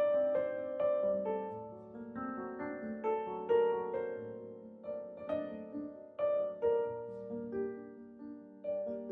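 Background piano music: a gentle melody of single notes, each struck and left to fade.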